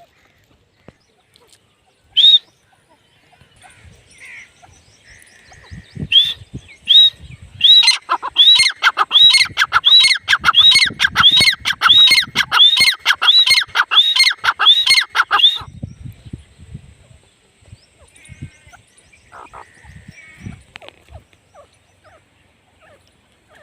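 Female grey francolin calling: one sharp note, then a loud, fast run of repeated ringing notes that speeds up to about two a second and stops abruptly, followed by a few faint notes.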